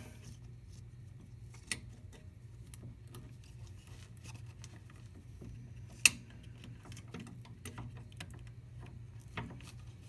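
Slip-joint pliers working a plastic split 'mushroom' clip on a car's plastic splash cover: scattered small plastic clicks and ticks, with a sharp snap about six seconds in, over a low steady hum.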